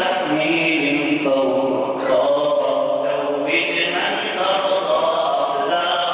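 A man singing an Arabic nasheed without instruments into a handheld microphone, drawing out long, ornamented held notes in a chant-like style.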